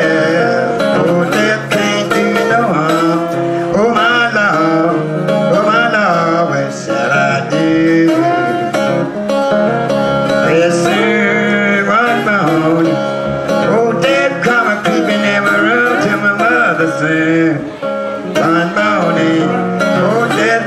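Acoustic country blues in the Piedmont style: a woman singing, her voice bending and sliding between notes, over a steadily played acoustic guitar.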